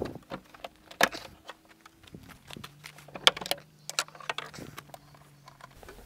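Irregular clicks and light metallic knocks from a Range Rover L322's bonnet hinges and catches as the bonnet is handled and swung up into its vertical service position, the sharpest about a second in and just after three seconds.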